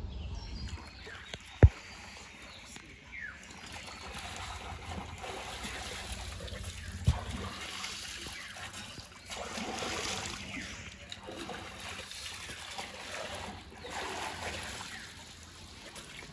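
Pond water splashing and trickling as a man wades waist-deep and scoops water over himself, in several uneven surges. Two sharp knocks stand out, about a second and a half and about seven seconds in.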